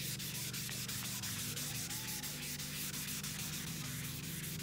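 600-grit wet sandpaper on a hand pad rubbing back and forth over the wet, primered steel body of a 1959 El Camino: steady hand wet sanding. A steady low hum runs underneath.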